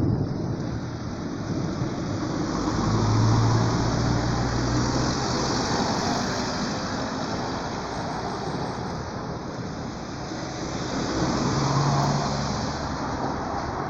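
Steady hiss of heavy rain with road traffic, as vehicles pass on a wet street. Two swells come and go, one about three seconds in and one near the end, each with a low engine hum.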